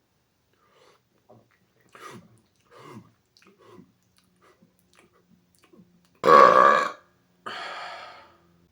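A man's loud burp, under a second long, about six seconds in, followed by a quieter, breathier sound that fades away. A few faint short sounds come before it.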